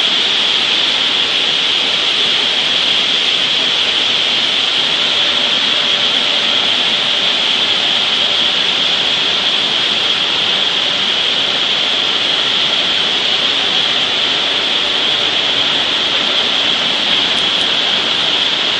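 Maize flour mill in operation: roller mills and pneumatic conveying pipework running together as a loud, steady machine din with a strong high hiss.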